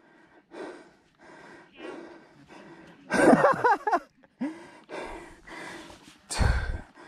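A rider breathing hard after a climb, in short gasping breaths about once a second, with a louder voiced groan about three seconds in. A loud puff with a low rumble hits the microphone near the end.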